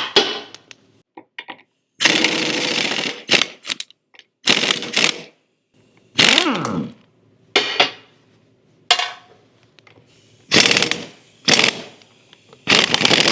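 Power tool with a socket running the four nuts off an axle end in short on-off bursts, some of them ending in a falling whine as the tool spins down.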